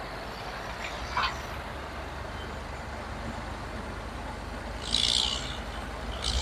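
Heavy machinery running with a steady low rumble, a short knock about a second in, and a short burst of hissing about five seconds in.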